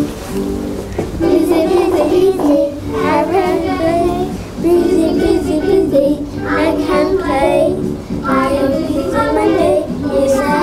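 A small group of children singing a simple classroom song in English, with musical accompaniment under their voices.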